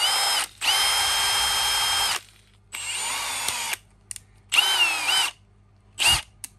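Milwaukee 2804 M18 FUEL brushless hammer drill running free with no load, switched on and off in about five trigger bursts, its motor whine dipping and rising in pitch as the trigger is squeezed and eased. The last bursts near the end are brief blips.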